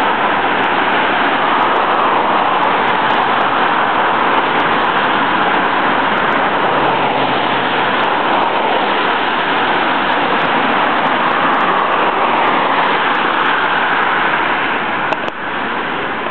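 Steady road-traffic noise, an even, unbroken rush of passing vehicles.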